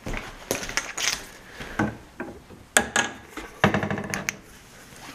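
Wooden kitchen base-cabinet doors opened by hand: a series of sharp clicks and knocks from the doors, hinges and metal knobs, with a quick rattle of ticks near the end.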